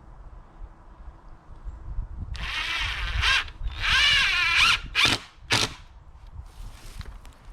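Cordless drill driving screws to fasten fence pickets: two runs of about a second each with a wavering whine, then two short bursts as the screws are snugged down.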